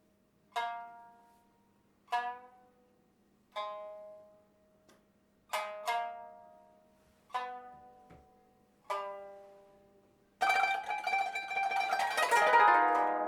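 Solo plucked string instrument music. Single notes ring out and fade about every second and a half, then about ten seconds in a louder, dense rush of rapidly plucked notes begins.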